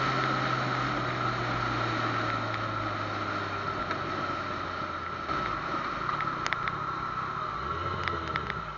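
Yamaha FZ-09's three-cylinder engine running under way, its note slowly falling as the bike slows, over wind noise.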